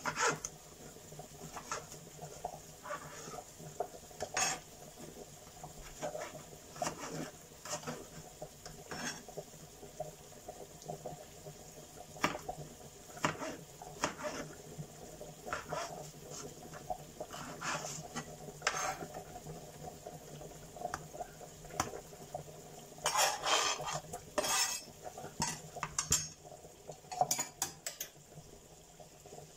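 Kitchen knife slicing a raw tomato on a plastic cutting board, a sharp knock each time the blade meets the board, spaced irregularly about a second apart. A louder flurry of knocks and scrapes comes a little before the end, as the slices go into the frying pan, over a faint sizzle of vegetables frying.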